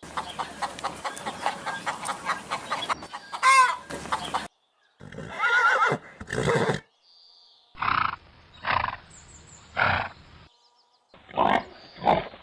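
A run of farm animal calls, some pitched and wavering. After a noisy first few seconds come separate calls, including three evenly spaced ones about a second apart.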